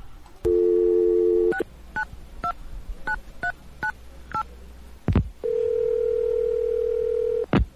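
Telephone call sound effect: a dial tone for about a second, then about seven touch-tone dialing beeps, a click, and a ringing tone of about two seconds cut off by a click as the call is answered.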